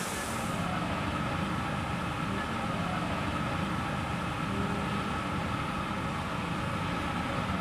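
Steady low mechanical rumble with a few faint steady whining tones over it, typical of a ship's machinery and ventilation heard at an open hatch in the hull.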